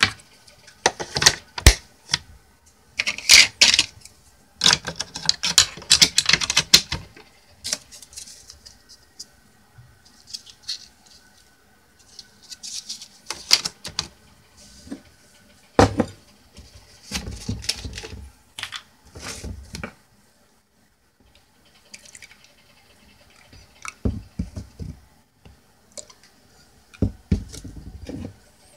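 Plastic parts of a Bosch Tassimo pod coffee machine being handled: the brewing chamber's lid and disc holder click and clatter as they are taken out and put back and a T-disc pod is set in. The sounds come in irregular bursts of clicks and scrapes, with a short quiet spell a little past the middle.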